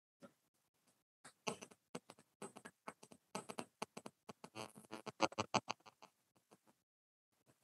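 Papers being handled and rustled on the bench: a dense run of small crackles and taps through the middle, thinning out near the end.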